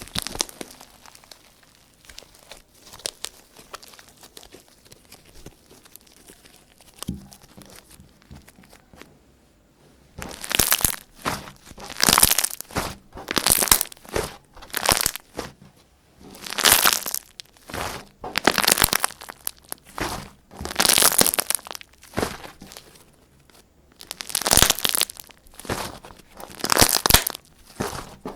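Homemade slime made with Lifebuoy soap and no borax, squeezed and stretched by hand with sticky squishing sounds. It is quiet and sparse at first; about a third of the way in, loud squishes begin, one every second or two.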